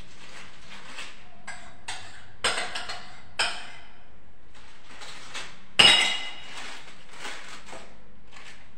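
Kitchenware clinking on a countertop: a clink with a short rattle about two and a half seconds in, another about a second later, and the loudest, a ringing clink, near six seconds in, with soft rustling in between.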